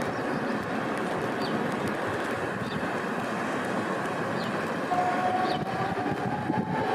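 Tatra T4D tram approaching over steady street and traffic noise. About five seconds in, a whine from its traction drive sets in and rises steadily in pitch as the tram accelerates.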